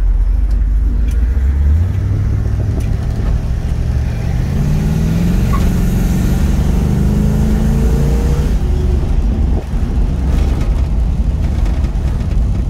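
1970 Plymouth Barracuda's 440 cubic-inch Six Barrel V8 (three two-barrel carburetors) running under way, heard from inside the cabin with a deep, steady rumble. About a third of the way in it pulls harder, its pitch climbing for several seconds, then it eases off.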